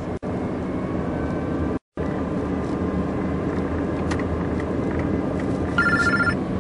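Steady engine and road noise inside the cabin of a moving Peugeot car, with the sound cutting out for a moment about two seconds in. Near the end a mobile phone starts ringing with a pulsing electronic tone.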